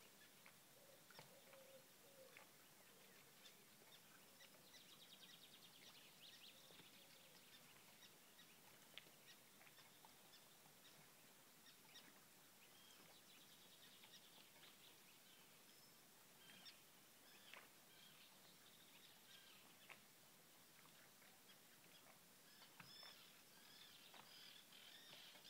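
Faint songbirds: rapid trilled songs come three times, with scattered short chirps between them, over a steady low hiss.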